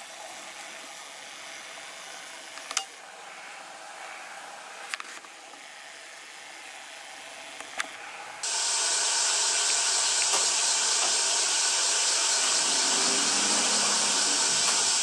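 Quiet room tone broken by a few short sharp clicks, then, from about eight seconds in, a steady loud hiss of background noise.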